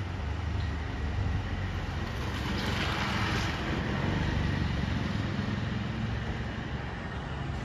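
Steady road-traffic rumble, swelling about three seconds in as a vehicle goes by.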